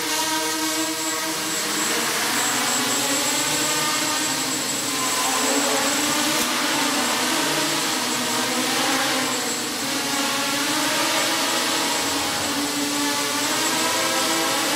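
Small electric quadrotors buzzing in flight, their propellers and motors making a steady drone whose pitch wavers up and down as the rotors change speed. A thin high tone joins in about a second in.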